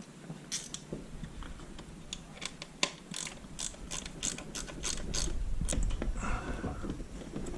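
A ratchet mechanism clicking in a quick, irregular run of sharp clicks, with a low rumble underneath that grows louder past the middle.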